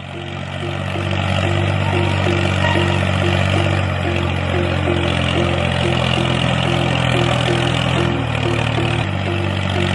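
Steady tractor-engine drone for a toy RC tractor as it pushes sand with its front blade, with a regular chug about two or three times a second. It builds over the first second and shifts slightly in pitch about eight seconds in.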